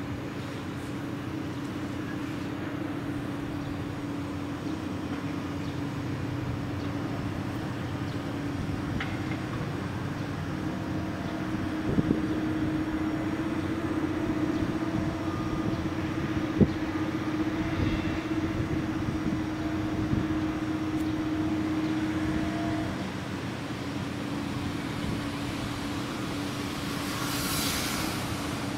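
Heavy diesel machinery working a gravel carrier's unloading, the ship's grab crane and a wheel loader, with a steady engine hum that rises in pitch about ten seconds in and drops back about twelve seconds later. Two sharp knocks are heard, and a hissing swell comes near the end.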